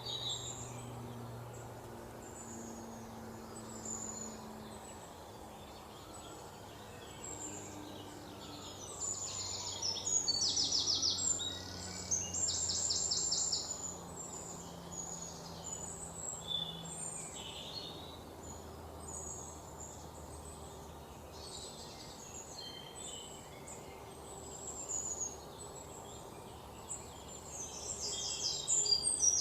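Birds chirping and singing, with bursts of rapid trills about ten seconds in and again near the end, over a faint low steady hum.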